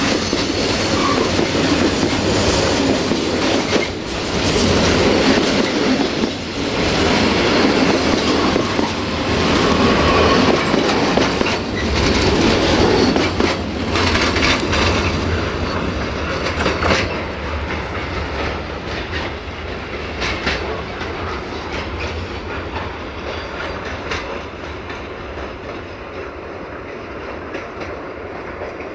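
Freight train wagons rolling past close by, wheels clattering over the rail joints with an occasional brief squeal. The last wagon goes by about halfway through, and the rumble then fades steadily as the train rolls away.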